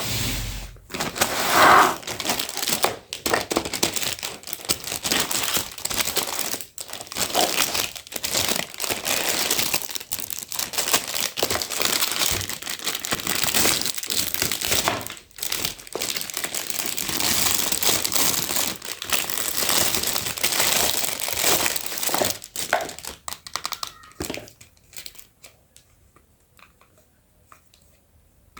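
Toy packaging being handled and crinkled during unboxing, a dense, irregular crackling that runs on and off, going almost quiet for the last few seconds.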